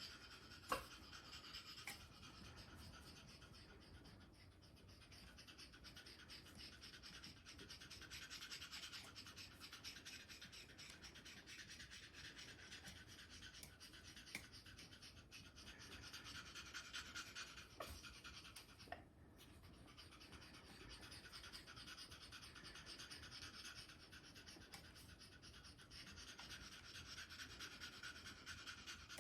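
Faint, rapid, breathy panting from an Amazon parrot in a hormonal mating display, swelling and fading in waves. A sharp click about a second in.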